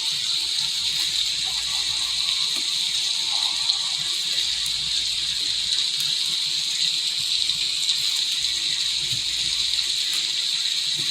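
Recorded rain sounds playing as a steady hiss, with a few faint ticks over it.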